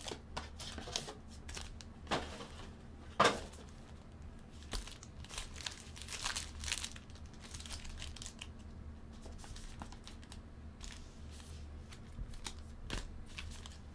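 Trading card pack wrappers crinkling and tearing as packs are handled and ripped open, in irregular crackles with a sharp rip about three seconds in.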